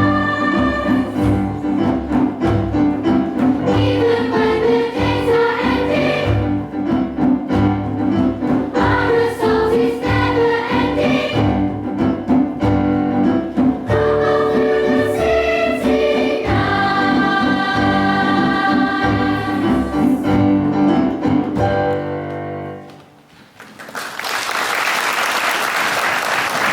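A group of voices singing in chorus over a steady low beat. The music stops about 23 seconds in and is followed by an even rushing noise.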